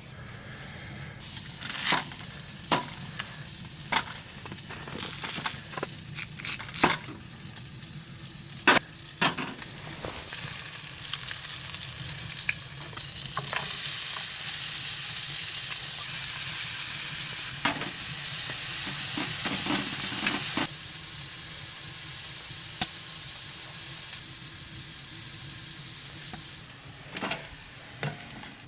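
Steady sizzling, as of food frying in a hot pan, with scattered clicks and scrapes of a utensil stirring. The sizzle steps up louder for several seconds in the middle, then drops back.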